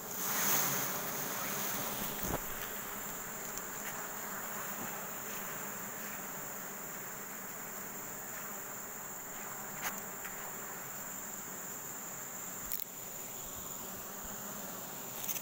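Honeybees buzzing steadily around an open honeycomb as it is handled, with a few faint clicks.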